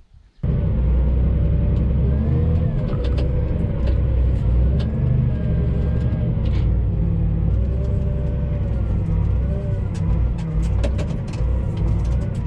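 A tractor engine running loud with a heavy low rumble, its pitch rising and falling, with scattered clicks and rattles. It starts suddenly about half a second in.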